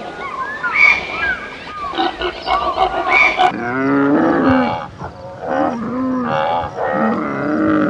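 High chirps and whistles for the first few seconds, then alpacas humming: a string of wavering calls that rise and fall in pitch, repeated several times.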